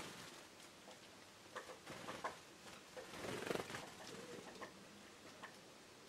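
Great tits at hanging lard: faint scattered short chirps and small taps, with a louder rustling stretch about three seconds in.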